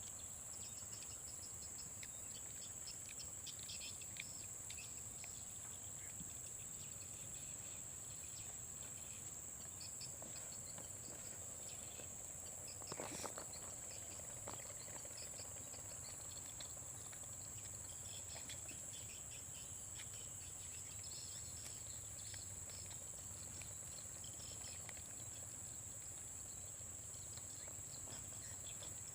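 Rainforest insects droning in a steady high-pitched chorus, with scattered short chirps throughout and one brief knock about halfway through.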